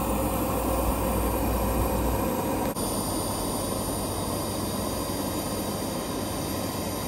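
Power sander running steadily, sanding down epoxy-and-fibreglass deck repairs to level them. The sound dips briefly just under three seconds in, then carries on.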